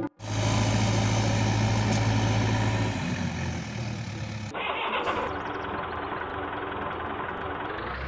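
A vehicle engine running steadily. Its note shifts about three seconds in and changes abruptly about a second and a half later.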